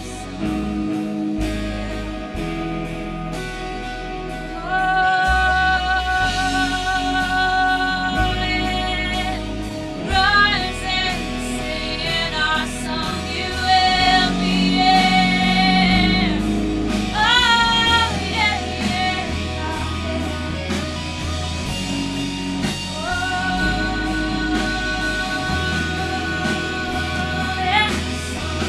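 Worship band playing a slow song, with a singer holding long, drawn-out notes without clear words over sustained bass and instruments.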